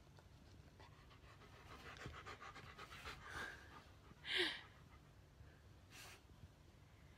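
A short, breathy exhale close to the microphone, like a quiet laugh through the nose, about four seconds in, with a smaller puff of breath near the end. Faint rustling and light ticking come just before it.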